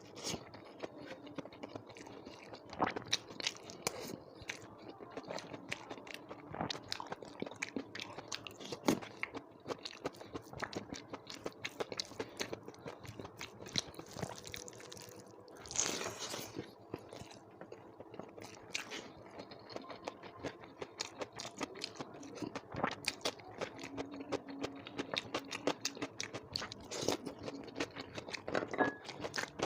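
Close-up chewing and biting of a person eating a meal of rice, dal and vegetable curry with salad, with crunching and many small sharp mouth clicks. A short breathy burst comes about halfway through.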